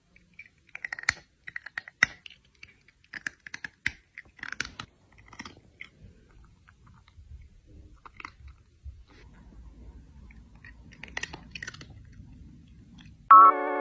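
Irregular crunching and chewing of hard, crunchy food, a quick cluster of crisp crunches at a time with short gaps between. Loud electronic music starts just before the end.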